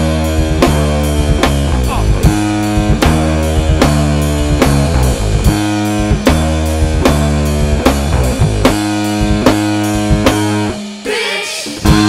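Instrumental rock music from a band: bass guitar and drum kit playing a steady groove, with a short break near the end before the full band comes back in.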